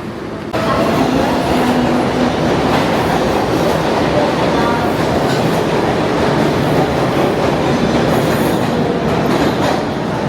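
New York City subway train running on the track: a loud, steady rumble and rattle of wheels and cars that jumps suddenly in level about half a second in.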